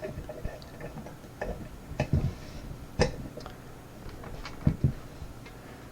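A handful of sharp, irregular clicks and light knocks from a small kik lock cylinder being handled.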